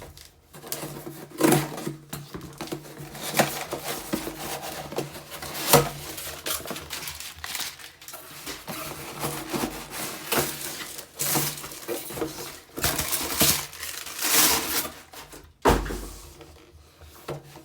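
Packaging being handled and opened by hand: irregular rustling, scraping and tearing, with sharp knocks now and then.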